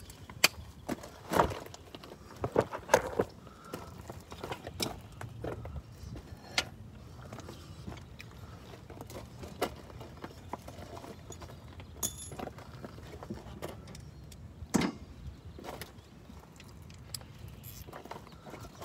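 Scattered metallic clicks and clanks of hand tools working on a car's strut and coil spring assembly, several in quick succession in the first few seconds and a single louder knock about fifteen seconds in.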